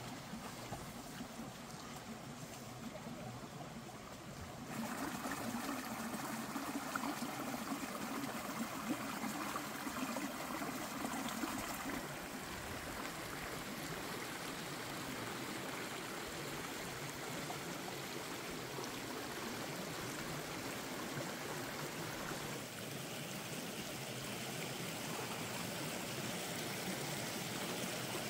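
Shallow stream running over rocks, a steady rush of water that grows louder about five seconds in and shifts in level a couple of times after.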